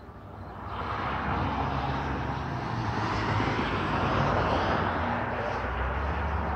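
Distant engine noise: a steady rushing drone with a low hum underneath, swelling up about a second in and staying loud.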